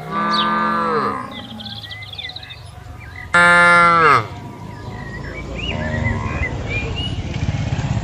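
Cattle mooing: one call about a second long right at the start, then a second, loudest call about three and a half seconds in, each falling in pitch at its end, followed by a lower, rougher lowing that builds toward the end. Small birds chirp faintly in the background.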